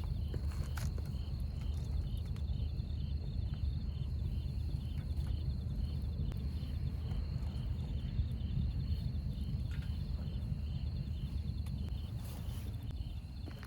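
Insects chirping: a short chirp repeating about twice a second over a steady high trill, with a steady low rumble underneath.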